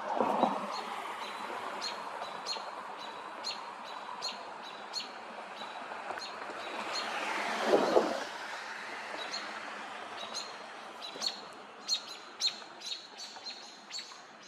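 A small bird chirping over and over with short, sharp, high calls, which come faster and closer together in the last few seconds. A rushing noise swells and fades twice, at the very start and about halfway.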